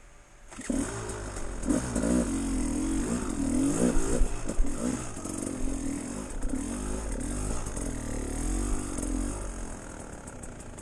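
Dirt bike engine revving up and down as it is ridden over rough trail, its pitch rising and falling every second or so. It starts abruptly about half a second in.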